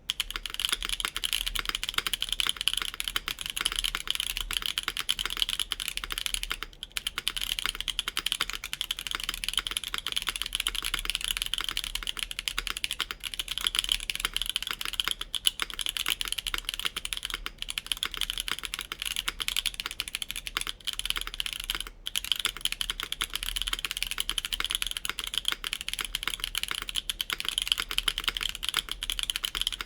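Continuous fast typing on a custom 65% mechanical keyboard: a wooden Bakeneko65 case with an FR4 plate in an o-ring mount, Mode Obscura switches lubed with 205g0, and GMK Terminal keycaps. It is a dense, even stream of keystrokes that pauses briefly about seven seconds in and again about twenty-two seconds in.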